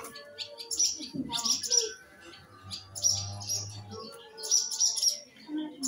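Small birds chirping and twittering in repeated bursts of high, quick chirps.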